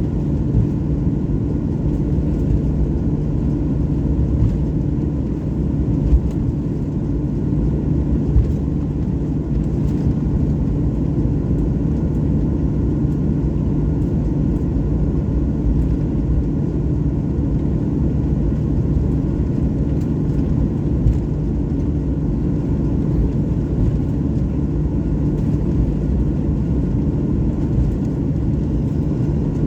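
Jet airliner running with a steady, unchanging low rumble carrying a low hum, with a few light knocks.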